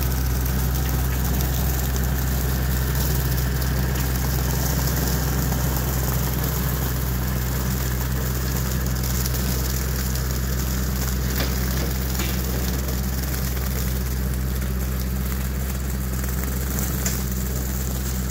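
Kioti DK45SE tractor's diesel engine running steadily at constant speed as the tractor pulls a bush hog along the road, growing slightly fainter as it moves away.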